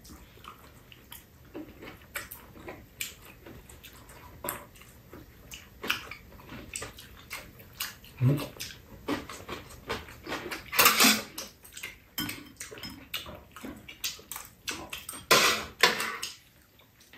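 Close-up eating sounds: wet chewing and lip smacking on juicy Shine Muscat grapes, a run of small clicks and smacks with two louder wet bursts about 11 and 15 seconds in.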